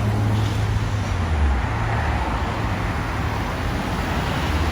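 Steady road-traffic noise: a low rumble under an even hiss.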